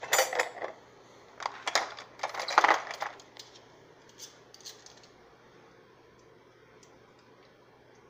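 Metal serving utensils clinking and scraping against cookware as food is scooped out of the pots and pans: a clatter right at the start, a second run of clinks between about one and a half and three seconds in, then a few light clicks.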